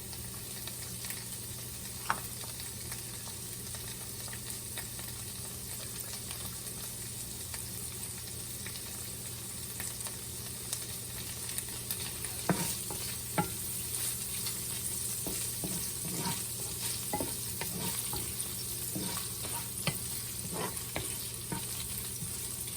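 Garlic and chopped green pepper sizzling steadily as they fry in a pan. From about halfway on, a utensil stirring them knocks and scrapes against the pan.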